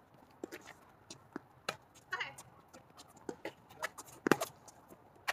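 Tennis rally on a hard court: a series of sharp pops from the ball striking rackets and bouncing, a few each second. The loudest is a close-by volley about four seconds in.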